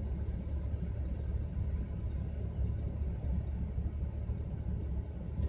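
Vehicle engine idling, heard from inside the cab as a steady low rumble.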